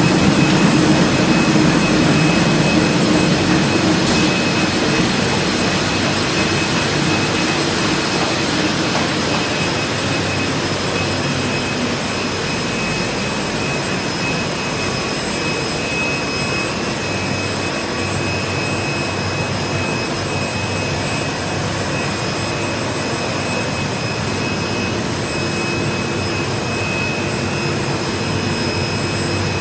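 KBA Rapida 105 seven-colour sheetfed offset press running: a loud, steady machine din with a thin high whine over it, the lower hum easing somewhat over the first several seconds.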